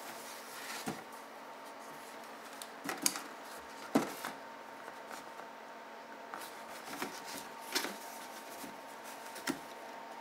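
A cardboard box being handled and turned by gloved hands: a scattering of short knocks and rustles, the loudest two about three and four seconds in, over a faint steady hum.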